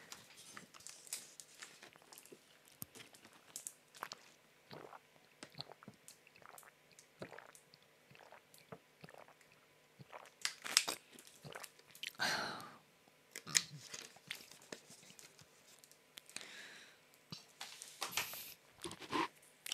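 Faint, irregular small clicks and crunches close to the microphone, a few stronger ones near the end.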